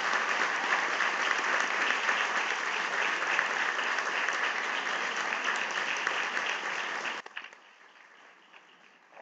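Audience applauding steadily, a dense patter of many hands clapping, which cuts off abruptly about seven seconds in.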